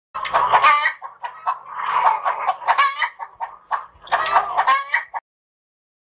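Chickens clucking and calling in a string of short, pitched calls that cut off abruptly about five seconds in.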